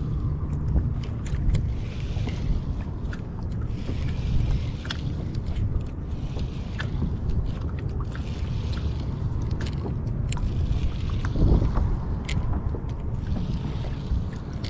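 Wind buffeting the microphone over water lapping at a kayak hull, with scattered small clicks and ticks.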